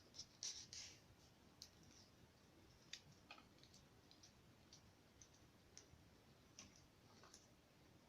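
Near silence with scattered faint clicks and a few short, light scratchy sounds, the loudest about half a second in.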